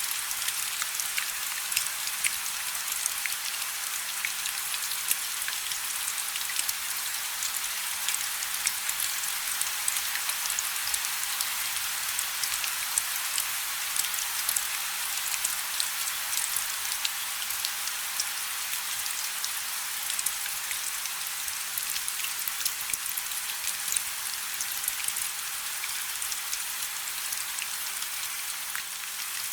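Steady rain: an even hiss dotted with many sharp individual drop ticks.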